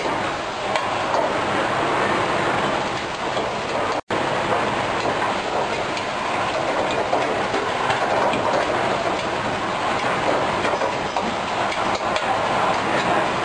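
Wok stir-frying over a high-pressure gas wok burner: a steady rush of burner flame and food sizzling in the hot wok, with a metal ladle now and then scraping and clicking against the wok.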